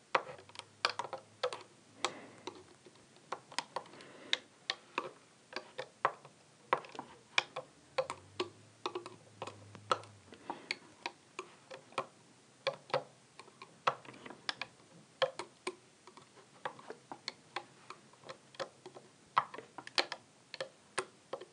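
Irregular sharp clicks and taps of a loom hook working rubber bands on the plastic pins of a Rainbow Loom, a few clicks a second, as bands are pulled back and hooked over from pin to pin.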